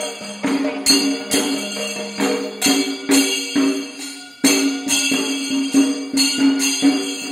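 Kerala temple procession music: a wind instrument plays a held, wavering melody over a low steady drone that stops about a third of the way in. Sharp drum strokes with bright cymbal or jingle clashes fall about twice a second.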